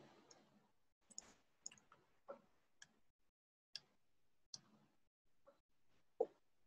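Faint, irregularly spaced computer keyboard keystrokes and mouse clicks, about a dozen sharp taps, the loudest one near the end.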